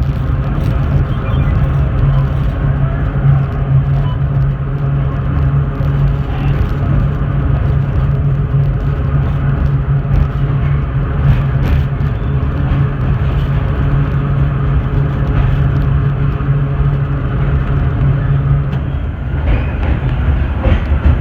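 Vintage IRT Low-Voltage subway car running along the track: a loud, steady rumble with a low hum that drops away about 19 seconds in.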